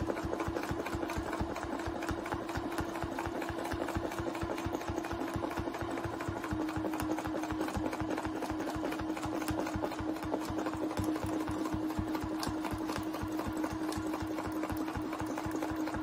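Domestic sewing machine running at a steady speed while free-motion quilting with a ruler foot. The needle strokes come in a rapid, even rhythm over a constant motor whine.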